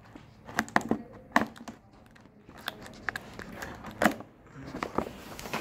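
Scissors cutting and working at stiff plastic packaging: several sharp, irregular snips and cracks with crinkling between them, the scissors struggling to get through.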